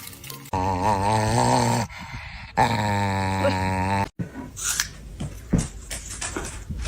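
A dog vocalizing in two long drawn-out calls, the first wavering up and down in pitch, the second held steadier, followed by a few scattered small clicks and noises.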